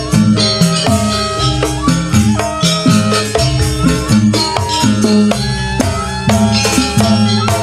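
Live janger ensemble music: a pitched melody over percussion keeping a steady beat.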